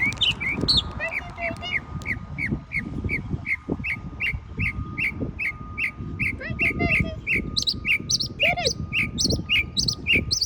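A songbird singing a steady run of short, repeated chirps, a little over two a second, with higher, sharper notes coming in about two-thirds of the way through, over a low background rumble.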